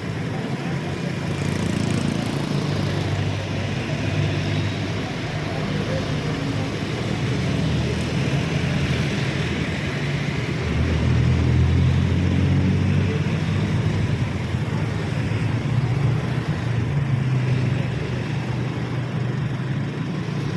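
A motor vehicle engine running with a steady low hum that grows louder about halfway through, over road noise.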